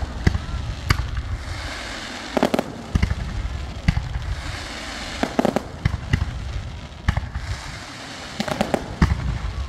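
Aerial fireworks going off in quick succession: sharp bangs and crackling pops over a low rumble, with hissing between volleys. The volleys come in heavy clusters about two and a half, five and a half and nine seconds in.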